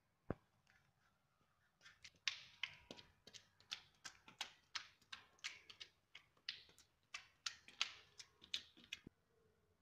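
A hand-held paint applicator pressed and dabbed repeatedly against a textured wall finish, giving a fast run of short soft taps, about three or four a second, after a single sharp click near the start.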